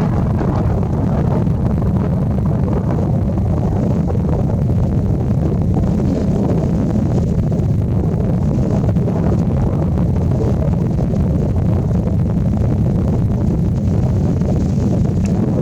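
Wind buffeting the microphone: a steady, loud, low rumble with no distinct events.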